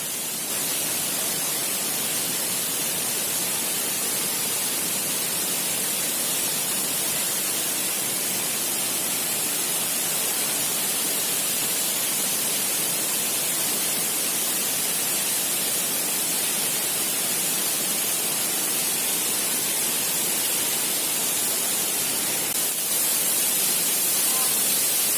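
Steady rushing water, an even hiss that stays constant throughout.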